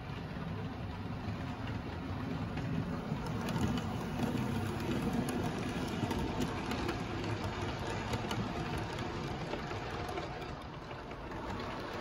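Model railway train running along the track and through the points, with a steady low motor hum and quick small clicks of the wheels over rail joints, louder in the middle as the train passes close.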